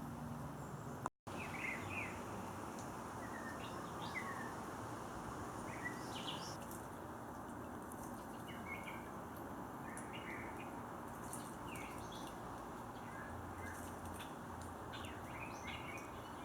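Scattered short bird chirps and calls over a steady background rush of noise, with a brief dropout about a second in.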